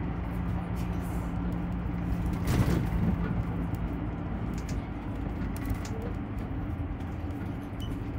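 Road noise and a low engine drone inside a moving motorhome, with light clicks and rattles from the cabin fittings and one louder knock about two and a half seconds in.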